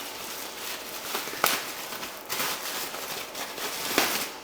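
A wrapper being pulled off an airbrush stand, crinkling and crackling, with sharp snaps about one and a half seconds and four seconds in.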